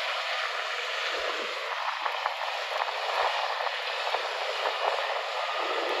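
John Deere combine running as it harvests, heard from a distance as a steady, even rushing noise.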